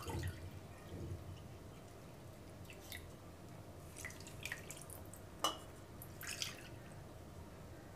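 Milk being poured from a small bowl into a non-stick pan of dry semolina, several pours in a row: faint splashing and dripping, with one sharp click about five and a half seconds in.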